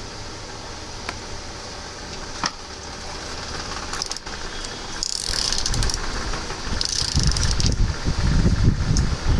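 Hands handling and opening a mouse's packaging: a few sharp clicks over a steady low hum, then from about halfway louder crinkling rustles and irregular knocks and rumbles.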